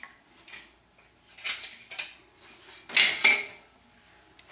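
A few light metallic clinks and clatters of steel pieces and tools knocked against each other at a welding bench, the loudest about three seconds in, some with a short ring.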